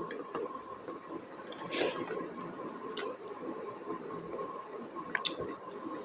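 Close-up chewing and wet mouth sounds of a person eating buffalo innards curry, with a few scattered sharp clicks.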